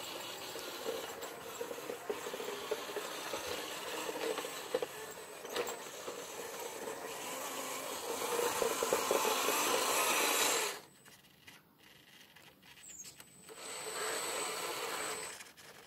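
WPL B24 GAZ-66 6x6 RC truck's electric motor and gearbox whining as it crawls over dirt, growing louder as it comes closer. It cuts out abruptly about eleven seconds in, then runs again for a couple of seconds near the end.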